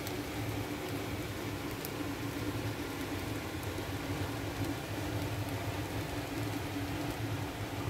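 A fan running steadily: an even whoosh with a low hum under it.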